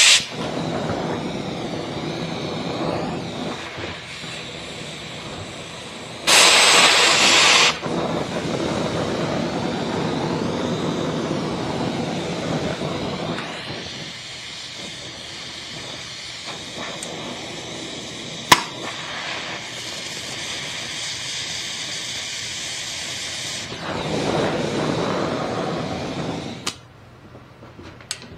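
Cutting torch hissing steadily as it heats and cuts a seized bushing out of a steel control arm. It gets much louder for about a second and a half around six seconds in, there is one sharp click at about eighteen seconds, and the torch goes quiet near the end.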